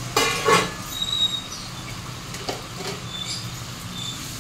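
Wooden spatula stirring sugar and water in a metal pot, scraping the pot's bottom with a few short high squeaks: sugar being dissolved for syrup. A loud clatter of crockery just after the start.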